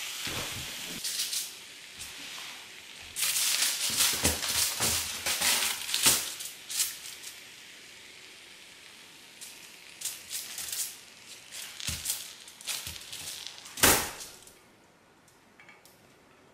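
Rolled dashi omelette sizzling in a rectangular tamagoyaki pan just taken off the burner, the sizzle dying away in the first second or so, then a few seconds of crackling and scraping as the pan is worked. Near the end, one sharp knock, the loudest sound, as the omelette is turned out of the pan onto aluminium foil.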